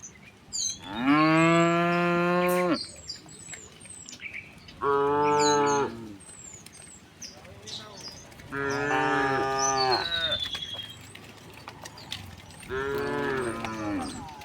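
Cattle mooing four times, one after another; the first moo is the longest, at about two seconds.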